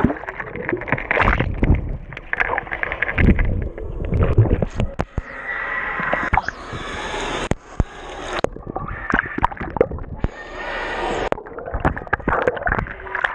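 Pool water splashing and sloshing right over a camera held at the waterline, with gurgling as it dips under. Irregular, with many small splashes and drips.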